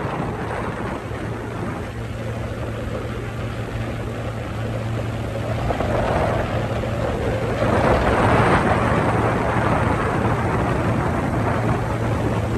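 Motorboat engine running steadily underway, a low even hum, under a rushing noise that grows louder about six to eight seconds in.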